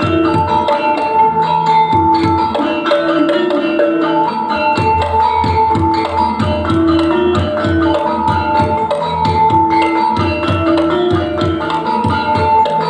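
Dance accompaniment music: drums and struck mallet-percussion tones playing a steady, busy rhythm under a sustained melody.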